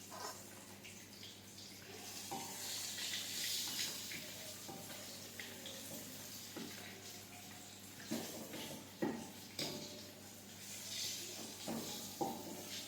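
Tap water running into a kitchen sink, swelling and easing, with knocks and short ringing clinks of dishes or utensils, several of them in the second half.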